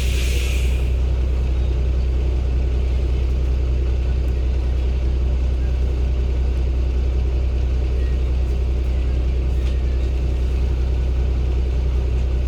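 Cummins ISB Euro 6 diesel of a Daewoo BS090 city bus running with a steady low drone, its pitch and level unchanged, with the air conditioning off. A short hiss of released air sounds in the first second.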